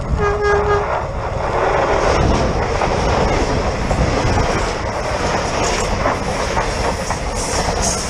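A Renfe electric commuter train gives one short horn blast and then runs past at close range, its wheels clattering on the track in a loud, continuous rush.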